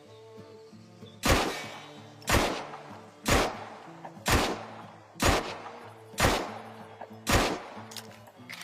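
Beretta M1915 pistol fired seven times, one shot about every second, each a sharp crack with a short ring-out. Background music plays underneath.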